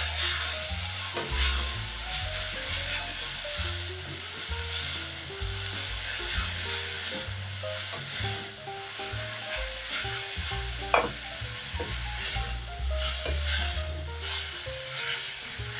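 Shredded cabbage and vegetables sizzling in hot oil in a metal pot over high heat, stirred and tossed with a wooden spoon that scrapes the pot, with one sharper knock about eleven seconds in. Soft background music plays underneath.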